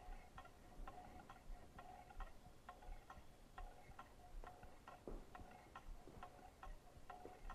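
Low-temperature Stirling engine running on the heat of two incandescent light bulbs, giving faint, even ticks about two to three times a second.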